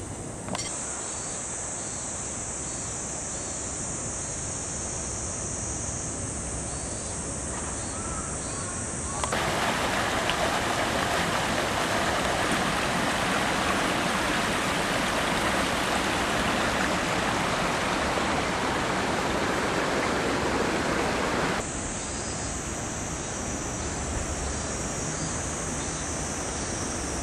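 Shallow garden stream running over rocks, a steady rush of water that starts abruptly about nine seconds in and cuts off about twelve seconds later. Before and after it, a steady high-pitched outdoor hiss.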